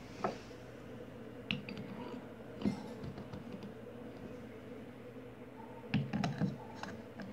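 Handling noise: scattered light clicks and knocks, with a short cluster about six seconds in, over a steady low hum.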